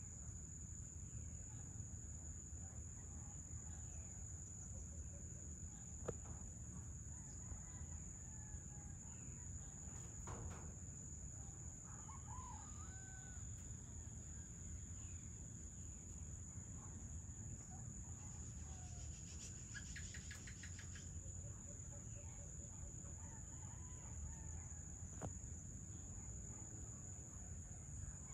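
Evening insects, crickets, shrilling on one steady high note, with a rooster crowing and a few other bird calls over them. A short, fast trill comes about two thirds of the way through.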